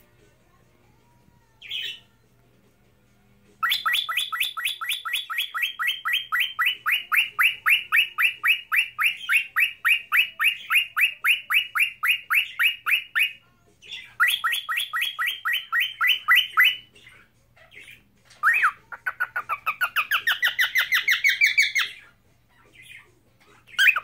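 Cockatiel whistling: a long run of rapid, evenly repeated short chirping notes, a pause, a second shorter run, then a warbled phrase that rises and falls near the end, with a few single chirps between.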